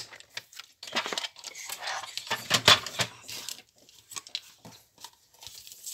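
Paper being cut on a sliding-blade paper trimmer: the blade scrapes through the paper, then come a few sharp plastic clacks about halfway through as the trimmer is handled, with light paper rustling.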